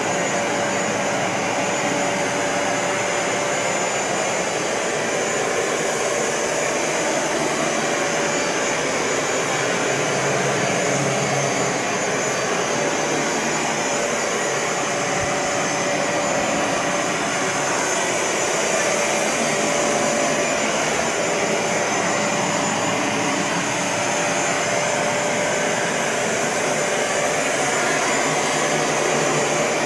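Bissell ProHeat 2X Revolution Pet Pro (model 1986) upright carpet cleaner running steadily while pushed over carpet: the suction motor's rushing air with a constant whine on top.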